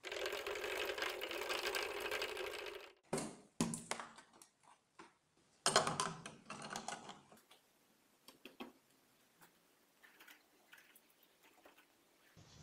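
Rapid, even rattling of a stick stirring liquid in a cut-down plastic bottle for about three seconds, used to mix the electrolyte for rust removal by electrolysis. It is followed by scattered knocks and clicks of handling the container, wire and clip leads.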